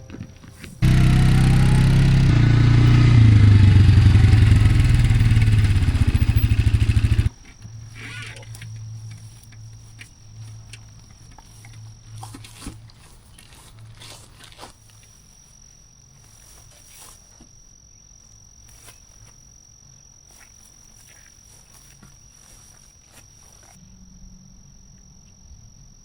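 A motor engine running hard, its pitch rising as it revs up, for several seconds before cutting off abruptly. Quiet outdoor ambience follows, with scattered small knocks and a thin steady high-pitched tone.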